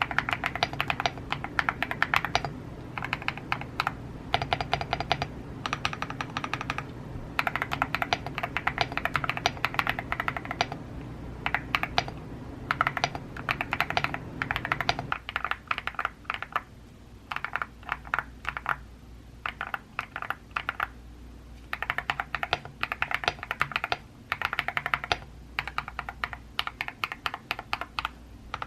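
Typing on a Womier SK71 mechanical keyboard modded with KTT Hyacinth linear switches and Osume keycaps, in fast runs of keystrokes broken by short pauses. It has the creamy sound of the finished mod.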